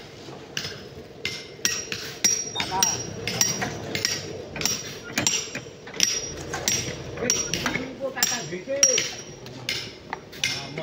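Hammer blows on rock as it is cut by hand, about two strikes a second and slightly uneven, each with a short metallic ring.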